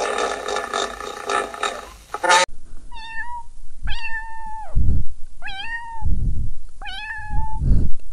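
Kitten meowing four times, short high mews about a second apart, each rising then holding level, with low thumps of handling between them. Before them a loud, rough continuous noise stops abruptly about two and a half seconds in.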